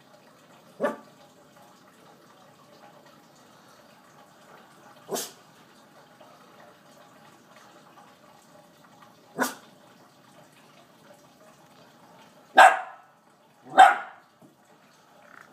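A small dog barking in single short barks, about four seconds apart, then two louder barks in quick succession near the end.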